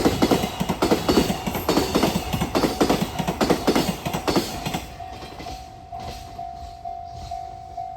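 Container freight train passing at speed, its wheels clacking over rail joints in a fast rhythm. The clacking fades about halfway through as the last wagons go by. About halfway in, a steady beeping tone starts, repeating about twice a second.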